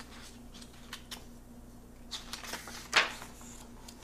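Pages of a picture book being turned by hand: a few small clicks and soft paper rustles, with the loudest swish of the page about three seconds in.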